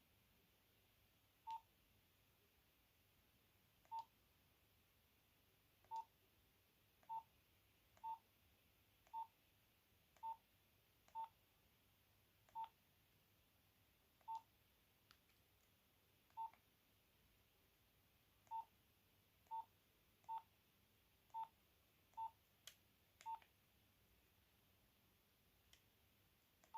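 Nokia 8210 keypad tones: a short single-pitch beep at each key press, about seventeen of them at an uneven pace as the keys are pressed one after another, with a few faint clicks in between.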